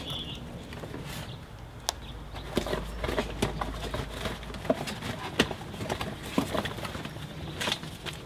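Cardboard box and its contents being handled and rummaged through: irregular knocks, taps and rustles.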